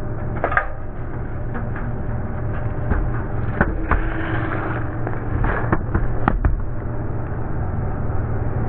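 Road roller's engine running steadily as its drum rolls over aluminium Coca-Cola cans, which crush and burst in a series of sharp cracks and pops, most of them between about three and six and a half seconds in.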